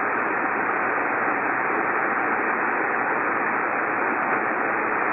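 Steady static hiss from a Yaesu FT-1000MP Mark-V shortwave transceiver tuned to lower sideband on the 75-meter ham band, with no station transmitting: the receiver's band noise between the operators' turns.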